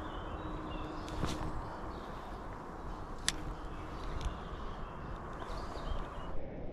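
Steady rushing of a small river's flowing water, with three sharp clicks and a few faint bird chirps.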